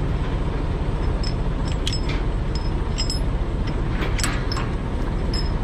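Steel transport chain links clinking and rattling as the chain is handled and pulled over a flatbed load, a scatter of short metallic ticks, over a steady low rumble.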